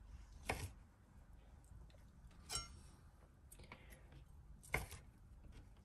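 A kitchen knife knocking three times on a plastic cutting board while ham is cut, the middle knock with a brief ring.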